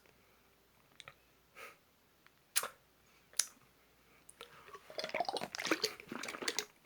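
Someone drinking a watermelon drink packed with coconut jelly and chewing the jelly pieces: a few scattered wet clicks at first, then a quick run of slurping and squishy chewing from about the middle on.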